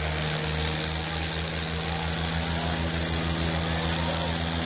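Diesel tractor engines running hard under load while pulling against each other in a tractor tug-of-war. They make a steady low drone, with a rapid, even throbbing that sets in just after the start.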